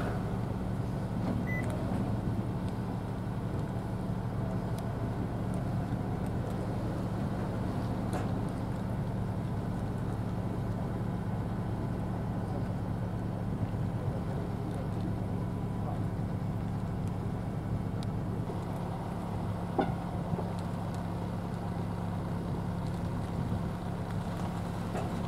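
Steady low machine hum, even and unchanging, with a low rumble beneath it and a few faint ticks.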